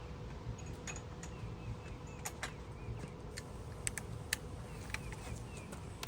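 Scattered light metallic clicks and clinks of removed oil pan bolts and hand tools being handled, with faint bird chirps behind.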